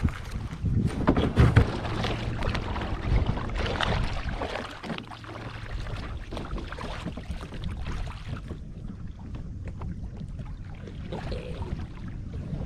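A small fishing kayak being paddled out: irregular paddle strokes splashing and knocking in the water, busiest in the first few seconds, with wind rumbling on the microphone.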